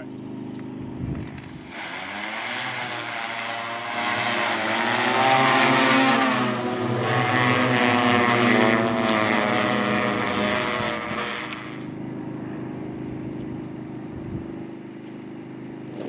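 Six-rotor drone's propellers spinning up about two seconds in with a rising buzz as it lifts off, then a loud, wavering buzz overhead that drops back to a quieter steady hum about twelve seconds in.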